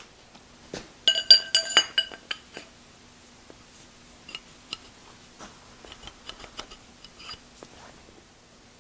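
Steel shaft and pulley parts clinking together as they are handled. A quick run of sharp, ringing metal clinks comes about a second in, followed by lighter taps and clicks.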